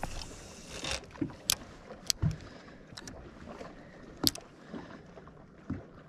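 Scattered sharp clicks and light knocks, about half a dozen, the loudest one about four seconds in, as a spinning rod and reel are handled and reeled on a bass boat deck. Under them runs a faint hiss of wind and water.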